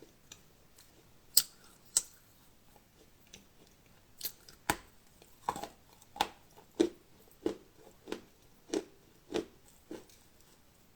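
Close-miked ASMR eating: crisp, crunchy chewing with sharp separate crunches, two early on and then a steady run of about one crunch every half second or so.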